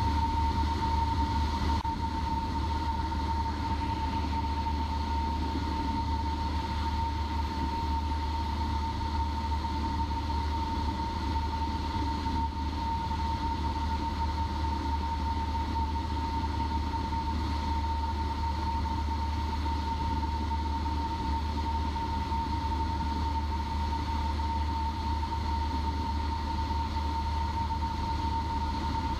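Cessna 172P's four-cylinder Lycoming engine and propeller droning steadily in cruise, heard from inside the cabin, with a steady high tone running through it.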